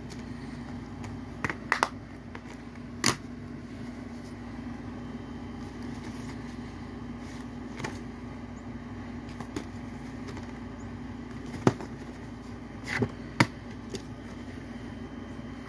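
Plastic Blu-ray cases being handled: scattered sharp clicks and taps as a case is snapped shut and cases are picked up and set down, over a steady low hum.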